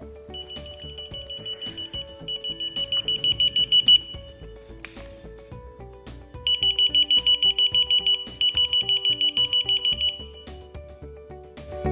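Mint H key-finder receiver beeping: a rapid high-pitched electronic beep pulsing about seven times a second, in bursts that grow louder and stop about ten seconds in. Background music plays under it.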